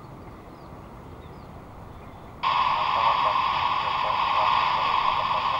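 Air traffic control radio channel: low hiss at first, then about two and a half seconds in a transmission keys up with a sudden, loud, steady rush of radio static and no clear words.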